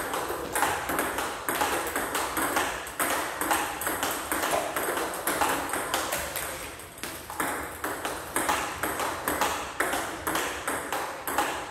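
Table tennis rally: the plastic ball clicking against the paddles and bouncing on the table in a quick, steady run of sharp ticks.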